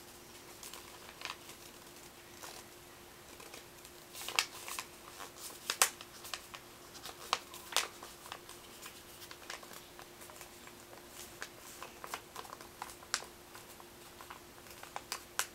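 A sheet of paper being opened out and refolded by hand: scattered crinkles and crackles as it is creased, over a faint steady hum.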